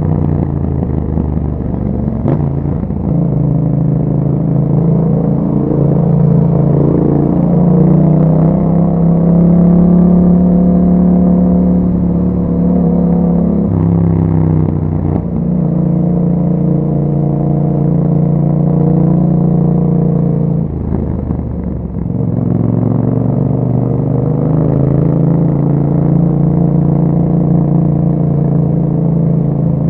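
Yamaha MT-07's parallel-twin engine running through an Akrapovic exhaust with dB killers while the bike is ridden, the pitch climbing and falling with the throttle. The note breaks for gear changes about two seconds in, near the middle, and about three quarters of the way through, where it briefly drops off before picking up again.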